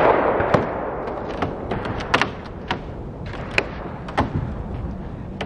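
About a dozen irregular knocks and clicks, the loudest at the very start: footsteps and gear being handled on the floor of a raised shooting tower.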